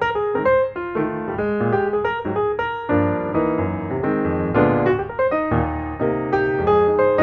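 Background piano music: a quick melody of single notes, which fills out with fuller, deeper chords about three seconds in.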